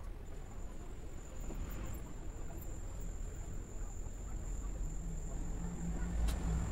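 Steady high-pitched insect trill over a low background rumble. A low hum comes in about five seconds in, and a sharp click sounds shortly after six seconds.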